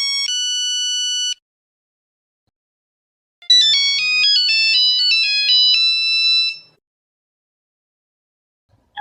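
Two short electronic Nokia phone melodies built of quick stepped beeping notes: the first ends about a second in, the second starts about three and a half seconds in and stops near seven seconds, with silence between them and after.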